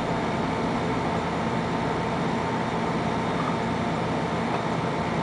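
A steady mechanical whir with a low hum, holding an even pitch and level.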